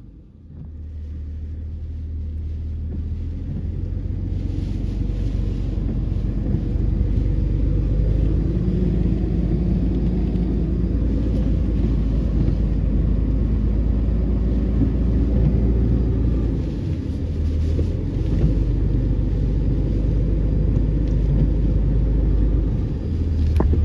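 Hurricane-force wind buffeting the microphone: a loud, steady low rumble that builds over the first few seconds and then holds, easing briefly twice.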